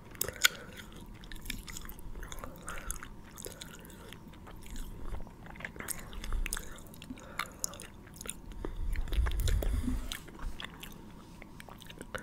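ASMR mouth sounds: a run of small, irregular clicks and smacks from the mouth. A low rumble swells about nine seconds in.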